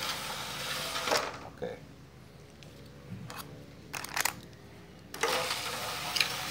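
Toyota Avanza power-window regulator motor running off a car battery, whirring as it drives the toothed lifting arm down. It is louder in the first second and again from about five seconds in, with several sharp clicks between as the battery clamp is touched to and lifted off the terminal.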